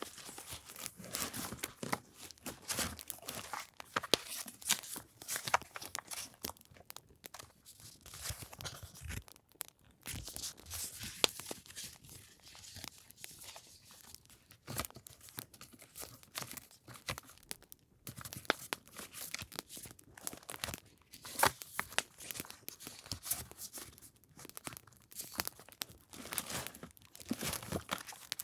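Paper and packaging being handled close to the microphone: irregular crinkling, rustling and tearing, with many small sharp crackles and short swells of noise.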